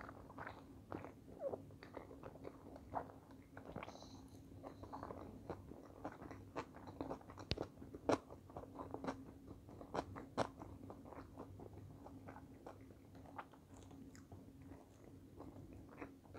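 Close-miked chewing of a mouthful of sushi: frequent soft clicks and wet mouth sounds, with a steady low hum underneath.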